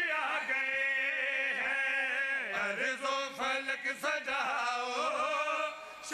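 Male voice chanting a devotional qasida into microphones, singing long wavering held notes with a few short breaks.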